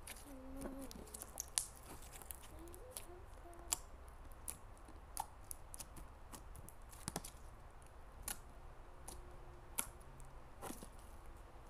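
Jelly cube slime being squeezed and stretched by hand, giving irregular small clicks and pops, a few of them sharper and louder.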